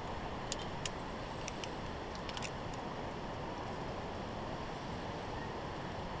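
Wind rushing over the microphone, with a few sharp metallic clicks and clinks about half a second to two and a half seconds in: a via ferrata carabiner knocking on the steel cable of a suspended ladder bridge.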